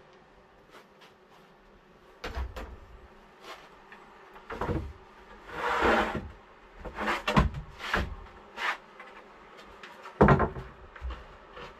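Scattered knocks and clunks of wood and tools being handled, with a longer scraping sound about six seconds in and a sharp knock near the end.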